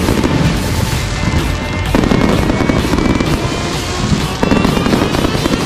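Aerial fireworks show: dense crackling and popping of bursting shells, with fresh volleys about two seconds in and again after four seconds, over music.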